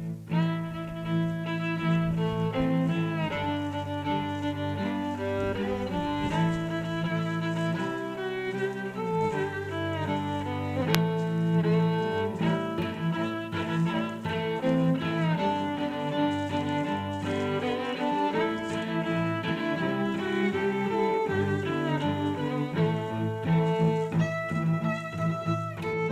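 Instrumental music led by bowed strings, a melody of held notes that change every second or so.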